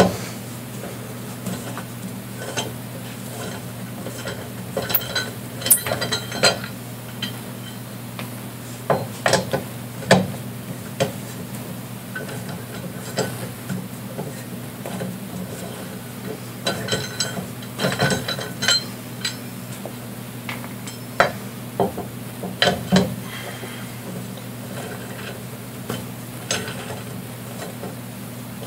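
Lug wrench clinking and scraping on a car's lug nuts as they are turned off the wheel by hand. It comes in irregular clusters of sharp metallic clicks over a steady low hum.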